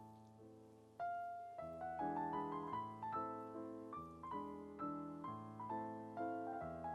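Background piano music: gentle notes struck one after another and fading away, with a brief lull that gives way to louder playing about a second in.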